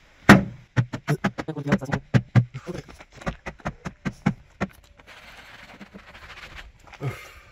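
A rag scrubbing the fibrous sound-deadening liner under a car's hood in quick back-and-forth strokes, about four or five a second for roughly four seconds, then a fainter, even hiss.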